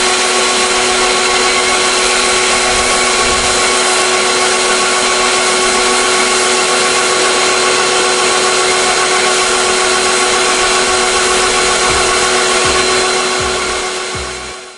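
Sun Joe SPX2598 electric pressure washer running steadily under load, its motor and pump giving a constant whine over the hiss of a MATCC foam cannon spraying snow foam. The sound fades out near the end.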